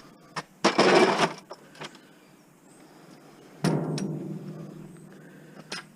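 Scrap metal being handled: a loud rattling clatter, then a single clang about three and a half seconds in that rings on and fades away over a couple of seconds, with a few light knocks in between.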